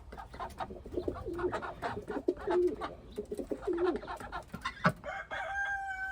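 Pigeons cooing, a low repeated coo about once a second, with light clicks and shuffling. Near the end a rooster starts a long, steady crow.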